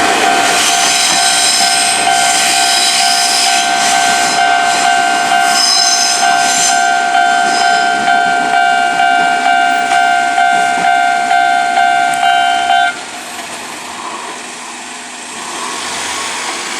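Japanese level-crossing warning bell ringing in an even repeating pattern while an Izuhakone Railway Sunzu Line train runs over the crossing, with high wheel noise over the first several seconds. The bell stops abruptly about 13 seconds in, as the crossing clears, leaving quieter background noise.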